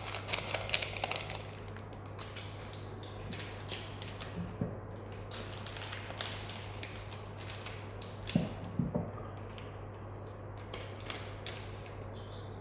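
Light, irregular crinkling and clicking of powder sachets and a bowl being handled as gelatin powder is mixed, with a few slightly louder knocks around the middle. A steady low hum runs underneath.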